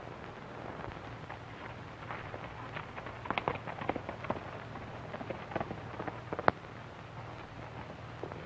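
Worn old film soundtrack with no dialogue: a steady low hum and hiss with scattered, irregular crackles and pops, the loudest pop about six and a half seconds in.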